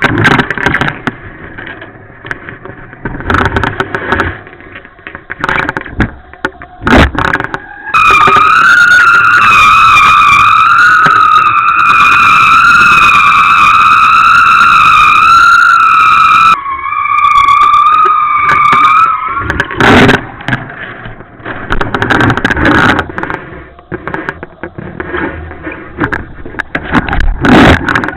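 Wind buffeting the microphone in irregular gusts, with a loud, slightly wavering whistling tone from about 8 to 19 seconds in, typical of wind singing over kite lines or the camera housing.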